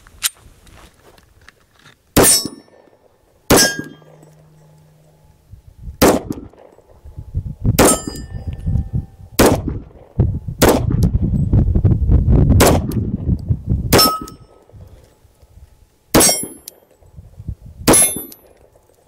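About ten pistol shots from a Stoeger Cougar in .40 S&W, fired slowly, a second or two apart, some followed by the brief ring of a struck steel target. Wind rumbles on the microphone in the middle stretch.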